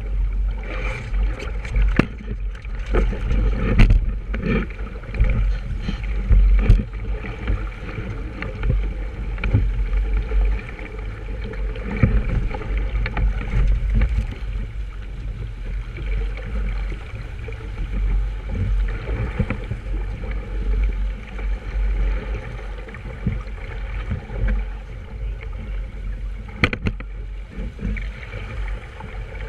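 Wind rumbling over the microphone and water sloshing along a sailboat's hull, with a few sharp knocks in the first several seconds and one more near the end.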